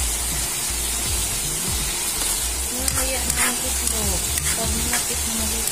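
Sliced bitter gourd sizzling in hot oil in a wok while a metal spatula stirs it, with a few scrapes and clicks of the spatula against the pan around the middle.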